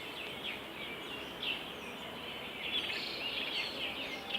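Many small birds chirping and calling at once, over a steady background hiss of outdoor ambience.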